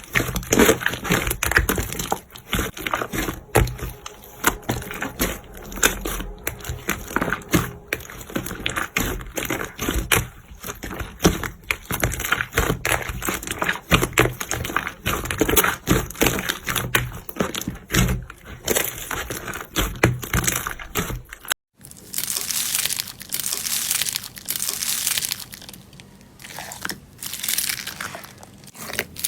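Slime being squeezed and pressed, making a dense run of small wet clicks, pops and crackles. About two thirds of the way through the sound cuts briefly and gives way to a different slime with a softer, hissier crackle.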